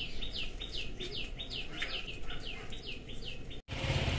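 A bird chirping over and over, short high chirps that drop in pitch, about three a second. Near the end the sound cuts abruptly to a louder low rumble.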